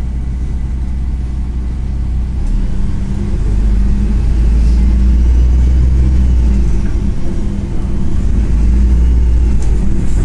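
A MAZ-103 city bus heard from inside the cabin: the diesel engine runs at a low steady drone, then grows louder from about two and a half seconds in as the bus pulls away and accelerates, easing briefly near eight seconds before pulling on.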